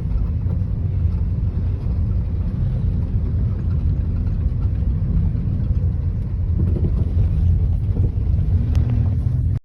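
Steady low rumble of engine and road noise heard from inside a moving car's cabin. It cuts off abruptly at the very end.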